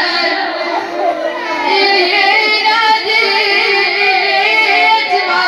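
A mullaya, a female Shia lament reciter, chanting an Arabic mourning lament (na'i), her voice wavering in long, unbroken phrases.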